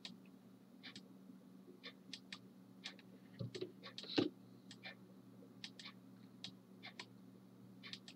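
Faint, irregular clicking of a computer mouse and keyboard, a few clicks a second with pauses, over a low steady hum.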